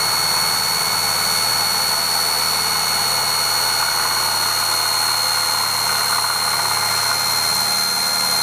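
Corded hammer drill running at a steady high whine as its bit drills into ceramic wall tile.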